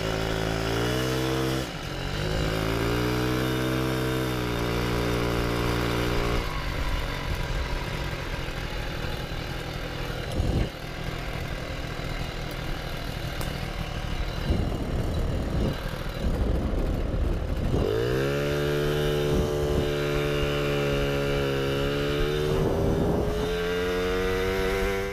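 Two-stroke engine of a Puch Maxi moped with an expansion-chamber pipe, revving up and down under a rider. For several seconds in the middle its note is lost in rough noise, then over the last seven seconds it accelerates with a steadily rising pitch before cutting off abruptly.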